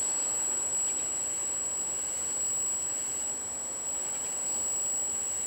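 A 3D printing pen running against a moped's plastic mount as it lays down molten plastic: a constant thin, high-pitched whine over a steady hiss of outdoor wind.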